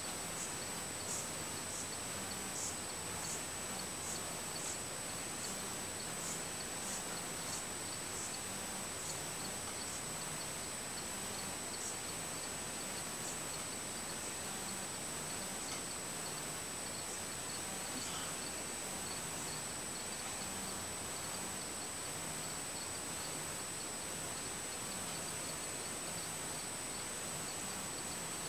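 Steady outdoor background hiss with a thin, steady high-pitched whine and faint ticks repeating about twice a second, thinning out after the first half.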